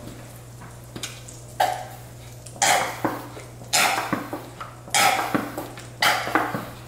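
Kitchen utensils and dishes clattering: after a quiet start, five sharp knocks come roughly a second apart.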